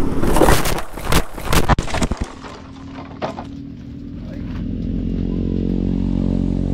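Clattering and scraping knocks for about two seconds, then a motorcycle engine running steadily, growing louder about halfway through.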